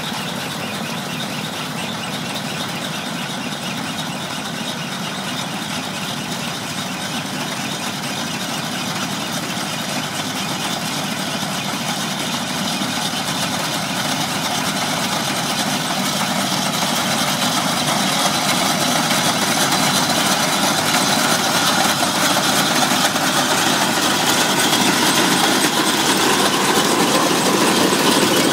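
Small walk-behind mung bean harvester (mini combine) running steadily as it works through the crop, its engine and machinery growing louder as it comes closer.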